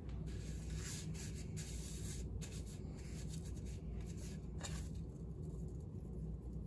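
Scratchy rustling of string being rubbed into coffee grounds on a tray, in short irregular strokes over a steady low hum.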